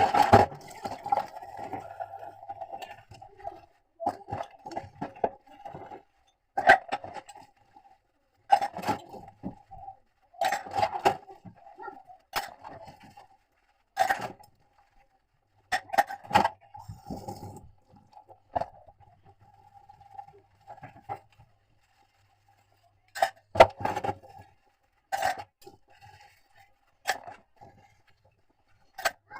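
Scattered clinks, knocks and scrapes of dishes and kitchen utensils being handled, with short gaps between them.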